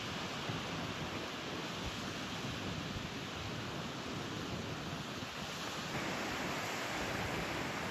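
Ocean surf breaking on the beach: a steady rushing wash that grows a little louder about six seconds in. The waves are running somewhat high in a typhoon swell.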